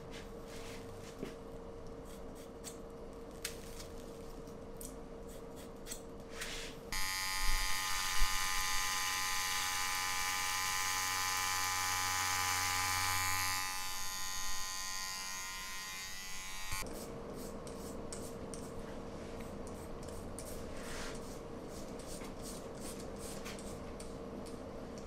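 Hair being cut off the head: scissors snipping for about the first seven seconds, then a Wahl electric hair clipper buzzing through long hair for about ten seconds until it stops suddenly. After that a safety razor scrapes in short strokes over a lathered scalp.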